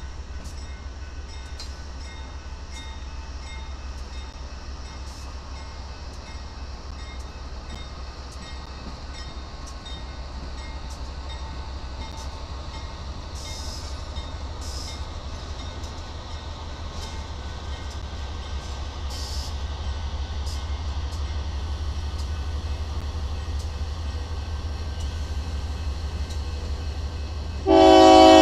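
Diesel-hauled freight train passing over a grade crossing, a Union Pacific locomotive and a grey KCSM unit leading: a steady low rumble of engines and rolling cars that grows slightly louder, with a crossing bell ringing faintly. Near the end a loud train horn blast starts.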